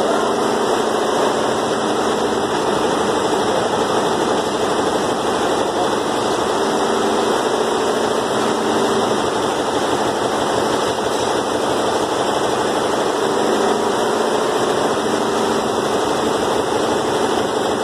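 Steady, loud machine running noise that holds even throughout, with no rhythm or breaks.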